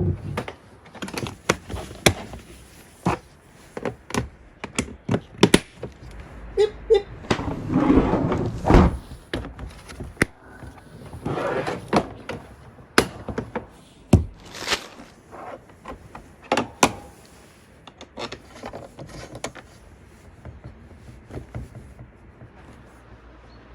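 Irregular sharp clicks, knocks and thuds with bursts of rustling, as lawnmower parts and packaging are handled and fitted together during assembly.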